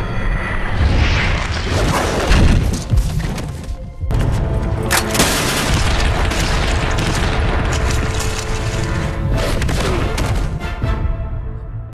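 TV action sound design: heavy booms and sharp impacts layered over a dramatic music score, with a brief drop in level about four seconds in, then a sudden hit.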